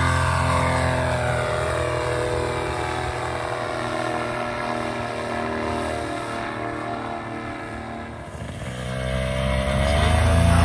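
Paramotor engine and propeller at full power during a launch, its pitch sagging a little as it fades while the paramotor climbs away. About nine seconds in, a paramotor engine is loud again, rising in pitch as it is throttled up for the next launch.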